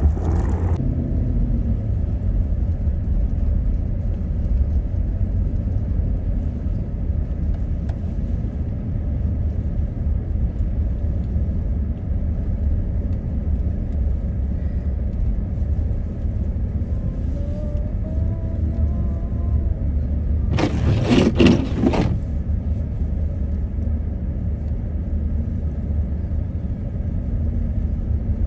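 Car driving on a snowy road: a steady low rumble of road and wind noise. About three-quarters of the way through, a louder rush of noise lasts about a second.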